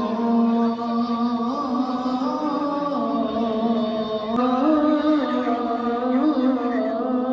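A muezzin's call to prayer, a single male voice chanting long, drawn-out held notes with slow melodic turns, pausing briefly a little over four seconds in.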